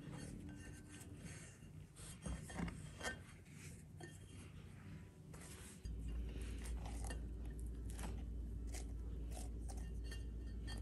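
Hands kneading a rough bread dough in a glass mixing bowl: irregular squishing and scraping, with a few knocks against the glass loudest between two and three seconds in. About halfway through a steady low hum starts underneath.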